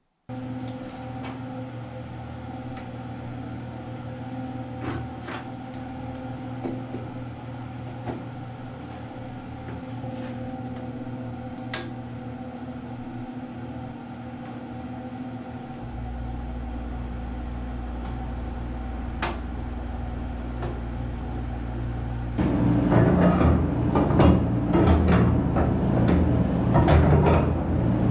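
Window air conditioner running with a steady hum and a few light clicks; about sixteen seconds in a deeper hum joins as its compressor starts. For the last several seconds, louder clattering and knocking of metal slide latches being worked on a door.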